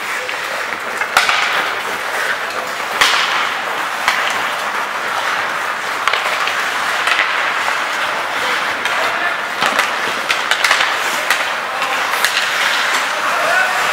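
Ice hockey in play: skate blades scraping and carving across the ice as a steady hiss, with several sharp clacks of sticks on the puck scattered through.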